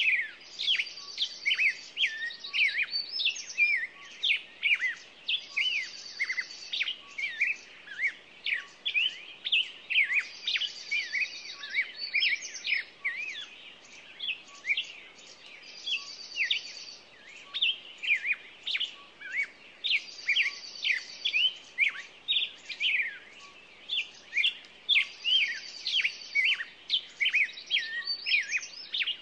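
Small songbirds chirping steadily, many short chirps overlapping, with a high buzzy trill repeating about every five seconds.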